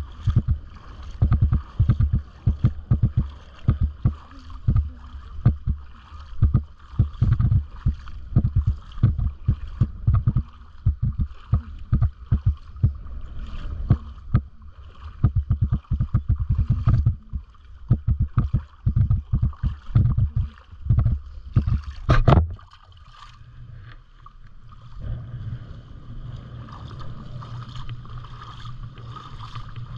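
Wading through ankle-deep sea water over sand: irregular splashing and sloshing, mixed with wind buffeting the microphone. It stops sharply a little after two thirds of the way in, leaving only a low steady hum.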